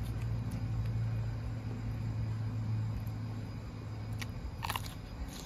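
Low steady hum of a distant motor, strongest for the first three seconds and then easing. Near the end comes a crisp crunch as a fresh cucumber is bitten.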